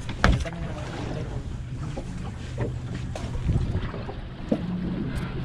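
Sportfishing boat's engine running steadily, with a sharp knock just after the start.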